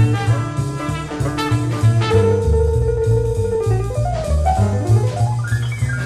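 Jazz with a drum kit and bass keeping a steady beat under a trumpet lead. The trumpet holds one long note about two seconds in, then plays a run of notes climbing upward near the end.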